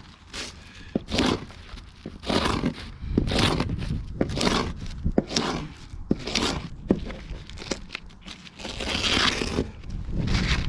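Utility knife with a curved carpet blade drawn through carpet again and again, about one rough scraping cut a second, with small clicks between strokes.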